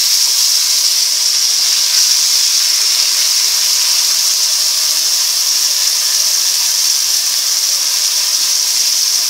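Sliced onions and chopped tomatoes sizzling in hot oil in a kadhai, a steady hiss that does not let up.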